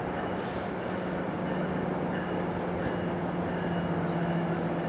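Commuter train approaching from a distance, heard as a steady low engine hum over outdoor background noise.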